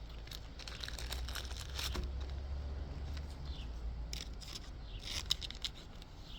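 Crinkly plastic rustling with scattered small clicks as trading cards are handled and slid into plastic sleeves, over a low steady rumble.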